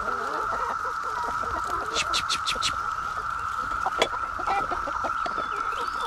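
Hens clucking in short low calls while they feed, over the steady high hum of a Brood X periodical cicada chorus. A quick run of about five sharp high notes comes about two seconds in.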